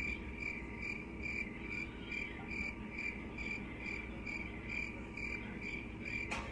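Steady electronic beeping: a short high-pitched beep repeating evenly about twice a second, over a low room hum, with a single click near the end.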